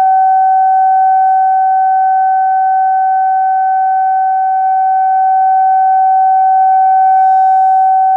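Siren holding one loud, steady tone, the signal that marks a moment of silent prayer.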